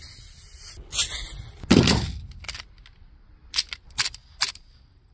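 Airsoft gas pistol magazine being charged from a can of green gas, a high hiss with two louder bursts, then the gas pistol firing: about six sharp shots in the last second and a half.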